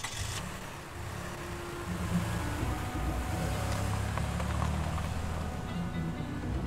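A car engine running as a sedan pulls away and drives off: a steady low rumble that builds about a second in and holds.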